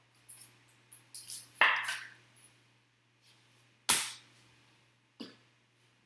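Trading cards in plastic sleeves being handled and slid against each other: small clicks and a brief scraping swish, then a sharp knock about four seconds in and a softer tap about a second later.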